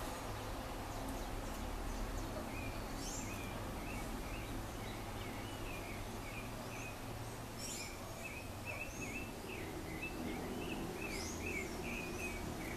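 Birds chirping, short high chirps repeated several times a second and coming faster in the second half, over a steady low background hum.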